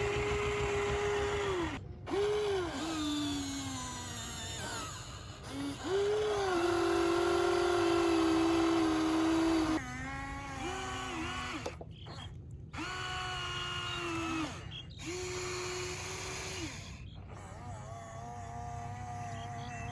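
Small electric motors of radio-controlled construction models whining in a string of short runs, each starting with a quick rise in pitch and stopping with a drop. One longer steady run sits in the middle, and one run slides down in pitch as it slows.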